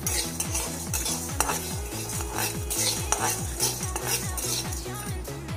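Steel spatula stirring and scraping dry chana dal, peanuts and seeds around a metal kadai, the roasting seeds rattling against the pan.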